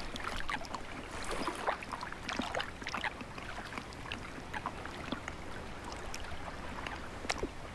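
Water splashing, with many small irregular splashes and drips over a steady lapping.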